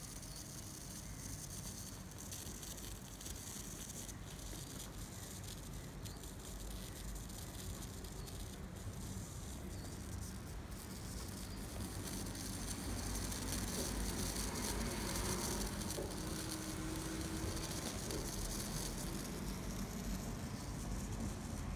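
High-voltage electric arc burning into a piece of cake, crackling and sizzling steadily with a low hum underneath, growing louder about two thirds of the way through.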